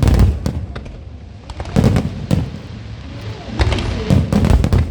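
Fireworks bursting overhead: a deep boom at the start, two more about two seconds in, then a quick run of bursts near the end.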